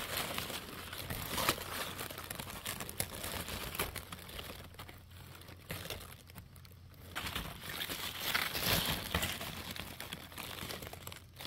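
Napa cabbage leaves rustling and crinkling as fingers turn and handle them close to the microphone, with a couple of short lulls about halfway through.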